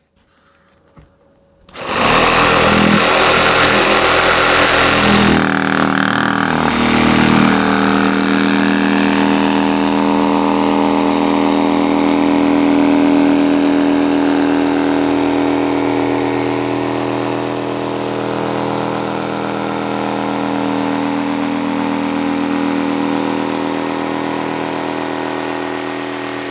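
Cordless Bosch jigsaw with a T313AW knife blade cutting through 2-inch green foam board insulation. The saw starts about two seconds in and then runs steadily at full speed, a loud even motor hum, through the cut.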